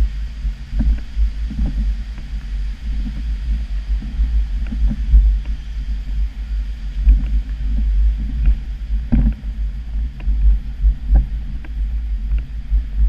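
Low, buffeting rumble of wind and handling noise on a handheld camera's microphone, with soft knocks about once a second from the steps of the person carrying it.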